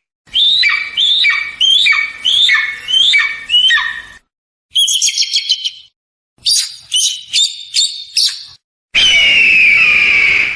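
Eagle calls: a run of about six notes that each rise and then fall, then two bursts of rapid high-pitched chittering, then one long drawn-out call near the end. The clips start and stop abruptly, with short silences between them.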